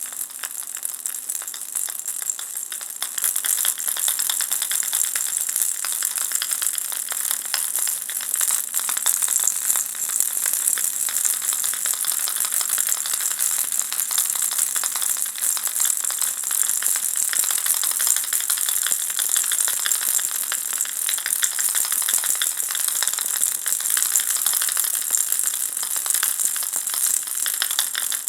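Spherical baby rattle (rattle ball) shaken continuously: a dense, shimmering clatter of small pieces inside the ball. It grows louder about three seconds in and then stays steady.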